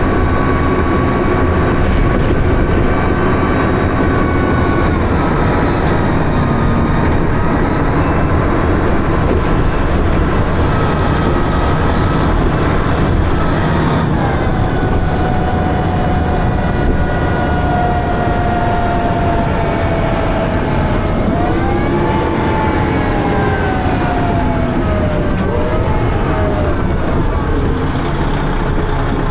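Dennis Arrow bus engine and ZF automatic gearbox running under way, with a whining tone that drops in pitch at gear changes. Around two-thirds of the way through, the whine rises and then falls twice.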